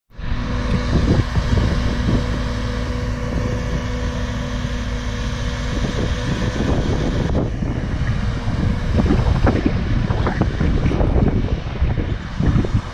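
Holmer T4-30 self-propelled sugar beet harvester running as it drives away, a steady hum with a held tone that drops out about halfway through. Wind buffets the microphone, heavier in the second half.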